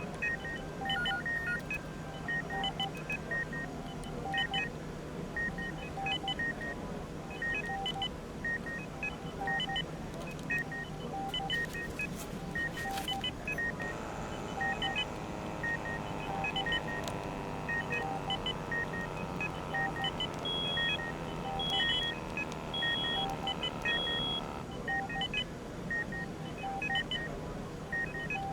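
Hospital medical equipment beeping: short electronic beeps repeat about once a second over a steady low hum. Near the end a second, higher-pitched device beeps four times, evenly spaced. A long whooshing noise with sliding tones runs through the middle.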